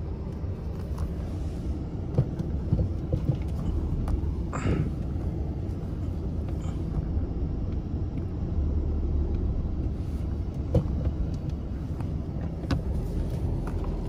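Volkswagen car's engine idling, a steady low rumble heard from inside the cabin, with a few light clicks and knocks.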